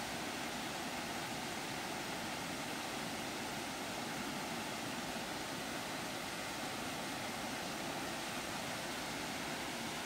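Small waterfall rushing steadily, an even unbroken wash of falling water.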